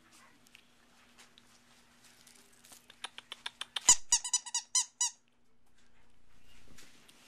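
Teacup chihuahua puppy squeaking: a quick run of about ten short, high squeaks over two seconds, the loudest near the middle, then a soft swelling rustle.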